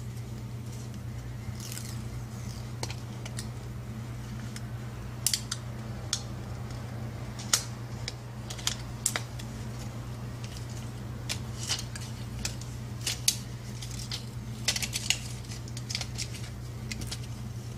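Small tools and phone parts clicking and tapping irregularly on a work surface, starting about five seconds in, over a steady low hum.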